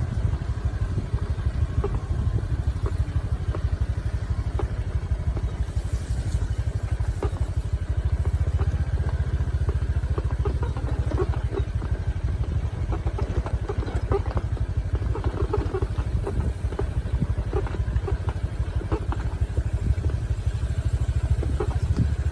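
A vehicle engine running steadily at low revs, with scattered light rattles and knocks.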